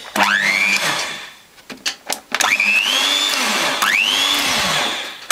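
Sunbeam hand mixer's small brushed motor switched on and whining up to speed, winding down and stopping after under two seconds, then starting again, its pitch dropping and climbing again as the speed switch is worked. The owner puts the sparking at its switch contacts and brushes down to carbon build-up.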